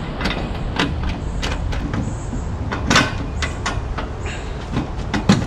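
Irregular sharp metallic clicks and clinks, the loudest about halfway through, from a socket wrench tightening the bottom bolts of a Humvee's above-water exhaust muffler, over a steady low background rumble.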